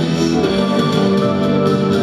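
Recorded music played from a 7-inch vinyl advance-copy pressing: steady held chords, the notes shifting about half a second in.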